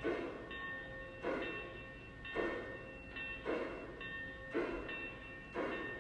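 Lionel O-gauge B6sb steam switcher's onboard sound system making slow steam chuffs, about one a second, as the locomotive moves at crawling speed.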